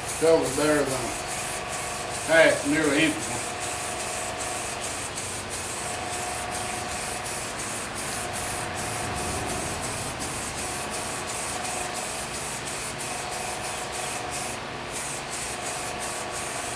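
Aerosol spray-paint can hissing in a long run of sprays, with many brief breaks between passes, laying another coat of paint on a steel bar.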